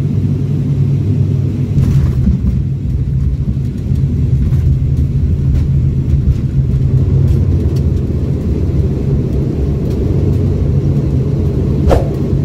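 ATR 72-600 turboprop engines and propellers giving a loud, steady low drone, heard from inside the cabin beside the propeller, with rumble as the airliner rolls along the runway after landing. A brief sharp click near the end.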